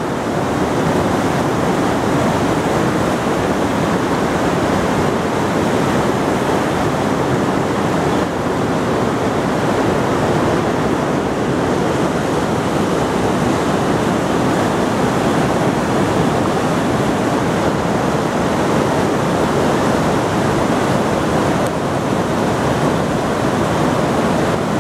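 Fast Himalayan river rushing over stones in whitewater rapids: a steady, loud rush of water.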